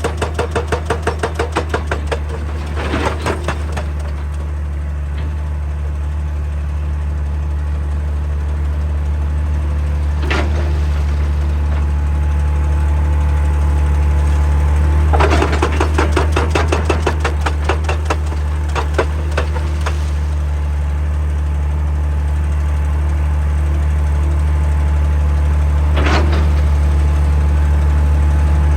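Excavator's diesel engine running steadily while its hydraulic breaker hammer pounds rock in short bursts of rapid blows, once at the start and again for a couple of seconds around the middle, with a few single knocks between.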